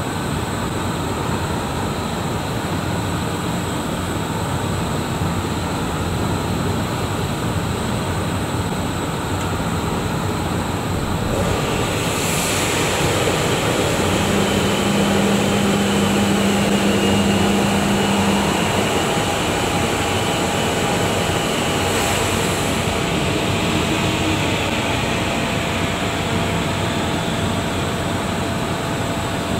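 CNC metal-spinning machine running, with a hand gas torch heating the spinning metal bottle blank: a loud, steady mechanical rush and hiss. About a third of the way in the sound turns brighter and stays so, and a steady low hum joins for a few seconds in the middle.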